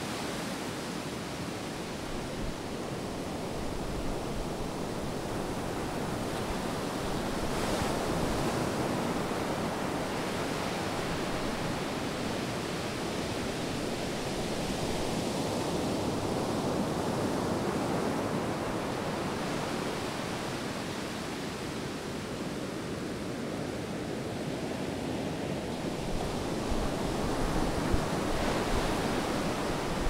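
Sea surf on a sandy beach: waves breaking and washing in as a steady rush that swells and eases every several seconds, with some low wind rumble near the end.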